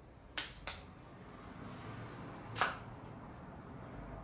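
Plastic tub being handled and its lid pried open: two light clicks near the start, then a sharper snap about two and a half seconds in.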